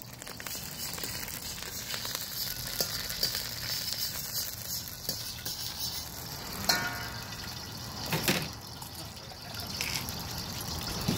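Fresh Thai basil sizzling steadily in hot olive oil in a wok, with a metal spatula scraping and knocking against the wok about six and a half seconds in.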